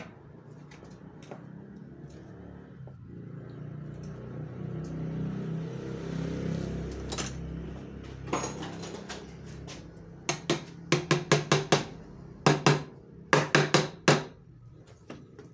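A low hum swells and fades over the first half. Then come two quick runs of sharp metallic taps on a metal paint can, about four a second, the loudest sounds here.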